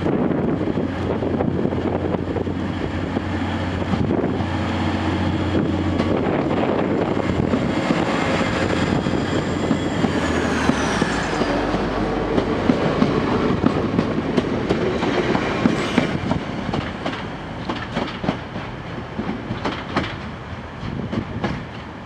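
TransPennine Express Class 185 diesel multiple unit passing and pulling away: its diesel engines run with a steady low note while the wheels click over rail joints and pointwork. A brief high whine falls in pitch about halfway through, and the sound fades somewhat near the end as the train draws off.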